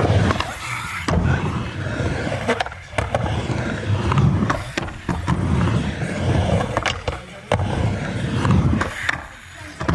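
Skateboard wheels rolling over rough concrete, a steady low rumble broken by about five sharp clacks of the board hitting the ground.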